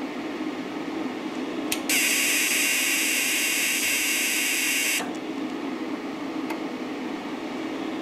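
Longevity TIGWELD 200D TIG welder triggered from its foot pedal: a click, then a loud high hiss for about three seconds that cuts off with another click when the pedal is let up. A steady low hum runs underneath.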